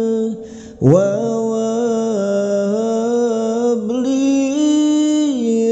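A voice chanting Arabic dhikr in long, slowly gliding held notes. There is a short breath pause about half a second in, after which the singing comes straight back.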